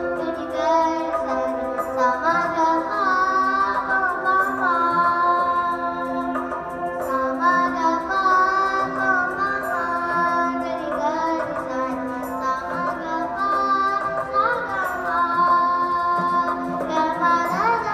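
A young girl singing a slow Telugu song into a stage microphone, holding long, wavering notes over a steady drone accompaniment.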